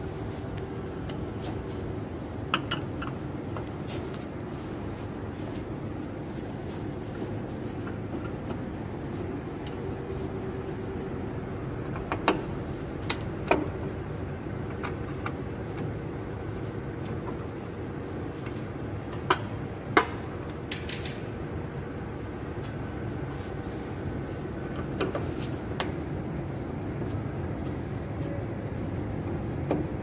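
Scattered sharp clicks and light knocks of a screwdriver and metal panel parts being handled as screws are taken out of an air-conditioner cabinet, the loudest around twelve and twenty seconds in, over a steady low machine hum.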